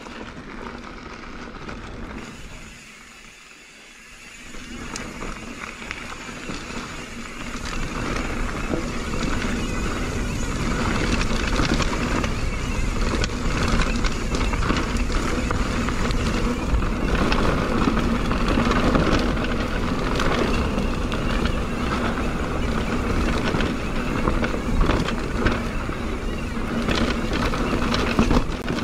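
Mountain bike rolling along a rocky dirt trail: continuous tyre and wind noise with frequent clicks and rattles from the bike over rough ground. It gets louder as the bike picks up speed about five seconds in.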